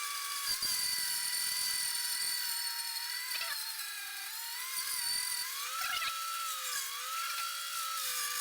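Bandsaw running with a steady whine, its pitch sagging and recovering several times as the blade cuts through a piece of wood along a curve.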